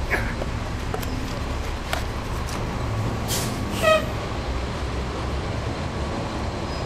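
Caterpillar C13 ACERT diesel engine of a NABI 416.15 transit bus running with a steady low rumble, heard from the rear seat inside the bus. About three and a half seconds in comes a short hiss, then a brief high squeak, with a few faint clicks and rattles.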